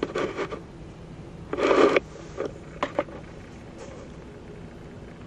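Handling noise from assembling a plastic balance-bike rocker base: short rustles and a brief scrape about a second and a half in, then a few sharp clicks a second later.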